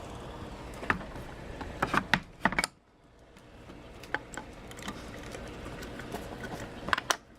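Scattered short clicks and taps at an uneven pace, bunched just before two and a half seconds in and again near the end, over a low steady background that drops out briefly near three seconds in.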